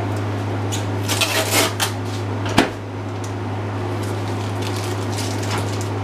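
Microwave oven door being worked: a few light clicks about a second in, then one sharp latch click about two and a half seconds in. A steady low hum runs underneath.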